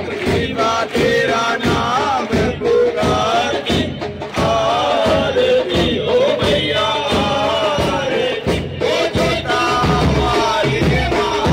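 Amplified devotional aarti to the goddess Kali: a sung melody over a steady percussion beat, with the crowd clapping along.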